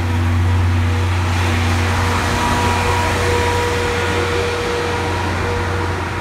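Passenger coaches of a steam-hauled train rolling slowly past along a station platform: a steady low hum and rumble, with a faint thin whine in the middle.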